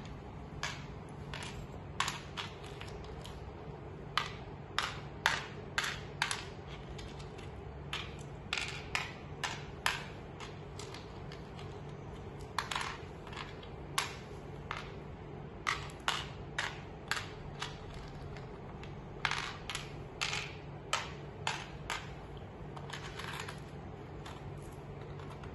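Tamarind seeds dropped one at a time into the steel pits of a pallanguli (mancala) board: a long run of light clicks and clinks, coming in quick clusters with short pauses between, as the seeds are sown pit by pit.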